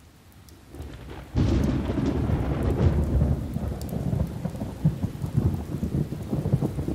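Thunder rumbling over rain: a low rumble swells about a second in, then jumps loud about a second and a half in and rolls on with crackles.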